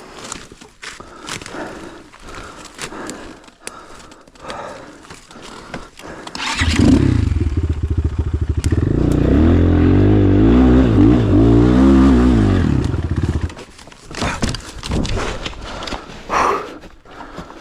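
Enduro motorcycle engine bursts into life about six and a half seconds in, revs up and down unevenly for about seven seconds, then cuts off. Before and after it come scattered knocks and rustling.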